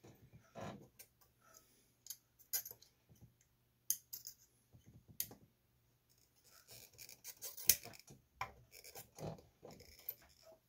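Soldering iron tip and a metal pick scraping and tapping on a circuit board while a transistor's soldered tabs are worked loose: scattered small clicks and scratches, busier in the second half. A faint steady low hum runs underneath.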